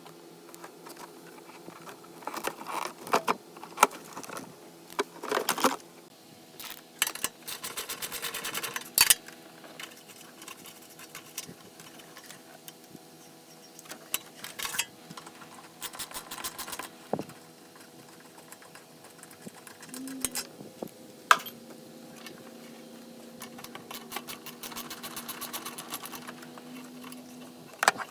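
A hand ratchet wrench clicking in several quick runs, with scattered clinks of metal tools and parts.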